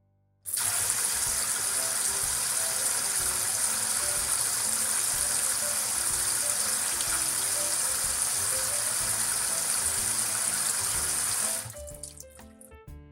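Water running from a kitchen tap into a sink: a steady, even rush that starts abruptly about half a second in and cuts off about 11 seconds later. Background music plays underneath and carries on alone after it stops.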